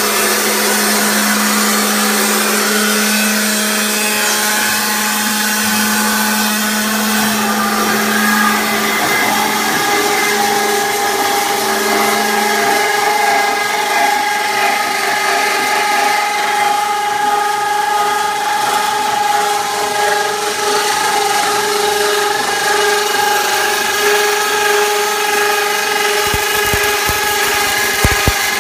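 Rack beam roll forming machine running, with steel strip feeding through its roller stations: a steady mechanical drone with a whine of several held tones, the lowest of which drops out about halfway through. Near the end come a few low thumps.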